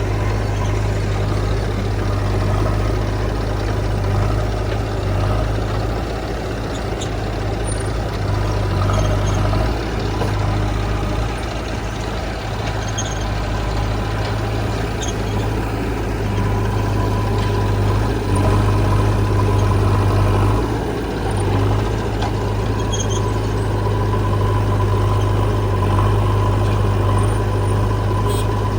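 Heavy diesel engine running steadily with a strong low hum, its level rising and falling a little as the machine works.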